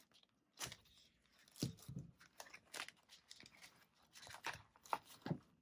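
A ring binder with clear plastic zipper envelopes being set down and handled on a tabletop: a string of short clicks, taps and plastic rustles.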